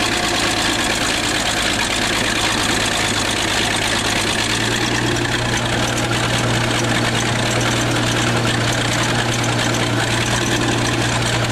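Bulldozer's diesel engine running steadily, its low hum growing stronger about halfway through.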